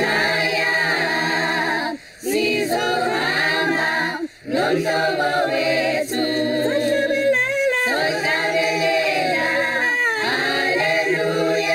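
Choir singing unaccompanied, several voices in harmony, in phrases with brief breaks about two and four seconds in.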